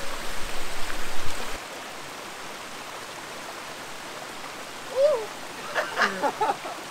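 Creek water rushing steadily, louder for the first second and a half. A few short chirps come about five to six and a half seconds in.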